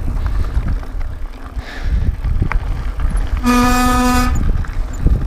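Mountain bike rolling downhill on a dirt and gravel trail: steady low rumble of tyres on the dirt and wind on the camera, with a flat, steady pitched tone lasting about a second, about three and a half seconds in.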